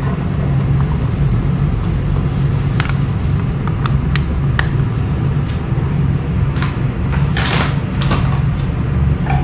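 Flour poured from a plastic bag into a dry frying pan: a few light clicks and a brief rustle about three-quarters through, over a steady low background hum.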